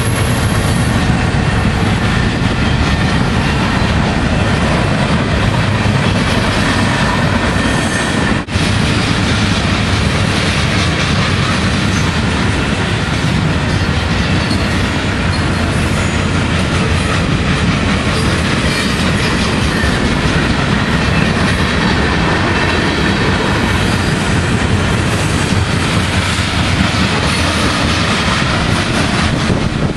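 Freight cars of a mixed freight train rolling past close by: the continuous heavy noise of steel wheels running on the rails. There is a brief dip in level about eight seconds in.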